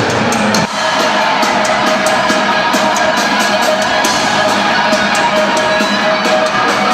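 Loud live rock music from a band playing on stage, with drums and guitar. The music breaks off abruptly less than a second in and carries straight on, as one clip cuts to the next.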